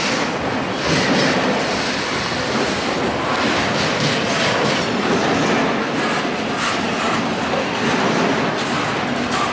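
Double-stack intermodal freight train's well cars rolling past close by: a steady noise of steel wheels on rail, broken by irregular clicks of wheels over rail joints.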